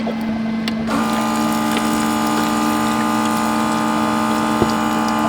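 A steady low hum, joined about a second in by a small electric motor starting up and running with a steady whine.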